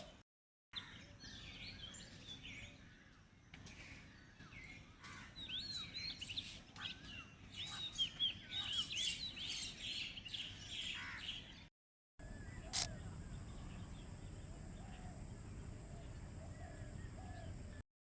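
Small birds chirping and calling in quick, high, repeated notes over a light outdoor background. About two-thirds through the sound cuts off briefly, then a steady hiss with a faint high whine follows, with a single sharp click just after the cut.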